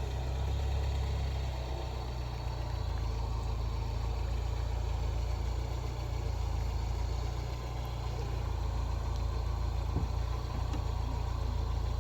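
A vehicle engine running steadily, a low rumble with no sharp changes.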